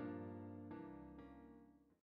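Background piano music: a few notes struck about every half second and held, fading out to silence at the end.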